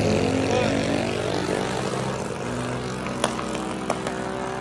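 Small engine of a mini bike or similar small vehicle running steadily, fading as it moves away, with two sharp clicks a little after three seconds in.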